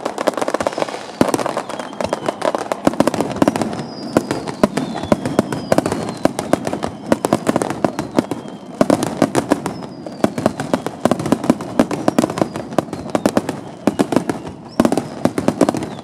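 Aerial fireworks display: a dense, continuous barrage of bangs and crackling from bursting shells, with a few whistles falling in pitch.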